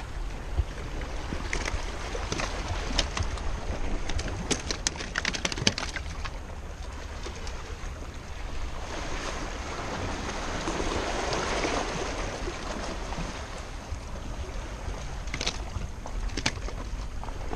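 Sea washing against the rocks of a breakwater, with a wash of water swelling and fading midway, under a steady low rumble of wind on the microphone. Scattered sharp clicks and knocks come through in the first six seconds and again near the end.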